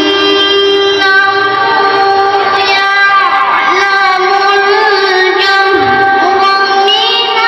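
A boy's high voice reciting the Qur'an melodically (qira'ah), holding long ornamented notes that waver and slide down in pitch between phrases.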